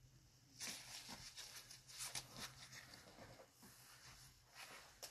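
Near silence, with faint scattered rustles, mostly about a second in, and a sharp click near the end.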